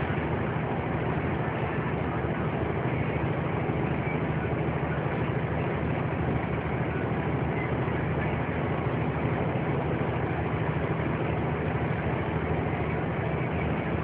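Steady engine drone and road noise heard from inside a vehicle's cab while it drives along.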